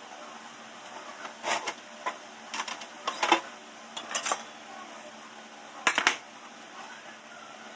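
Small steel parts, flat washers and a small ring, being set down one after another on a workbench, clinking in a series of short metallic taps. The sharpest clinks come about three seconds in and again near six seconds.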